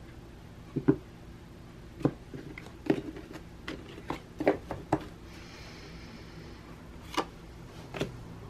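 Tarot cards being handled on a table: about ten soft, irregular taps and clicks as cards are drawn and laid down, with a brief sliding rustle a little past the middle.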